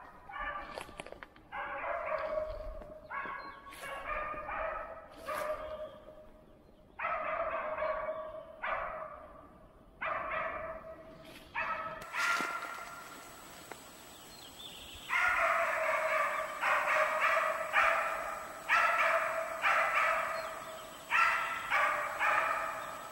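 West Siberian laikas barking at bay on moose they have found, in runs of barks broken by short pauses. The barking grows denser in the second half.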